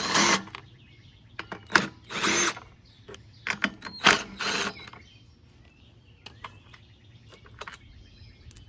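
Cordless power driver with a 10 mm socket spinning off the three nuts that hold a Honda GCV160 recoil starter, in three short bursts about two seconds apart. Light clicks and knocks follow as the plastic starter housing is handled.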